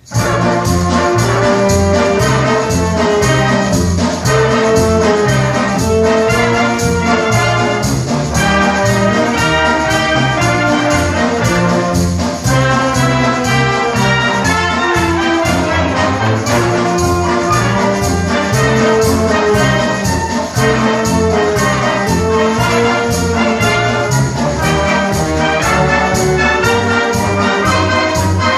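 A wind band of brass and woodwinds playing a piece together at full volume, over a steady beat.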